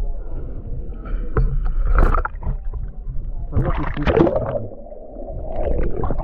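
Water sloshing and gurgling around a camera held in the sea at the surface, with irregular knocks and a louder churning stretch a little past the middle.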